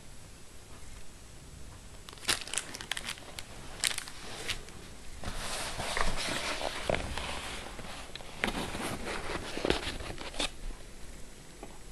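Packaging being handled: crinkling and crackling with sharp clicks, starting about two seconds in and stopping near the end.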